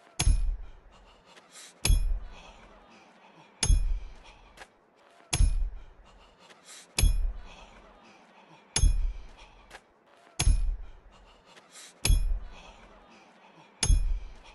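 Hammer driving a nail: nine steady blows about every 1.7 seconds, each a low thud with a high metallic ring, with faint clinks between blows.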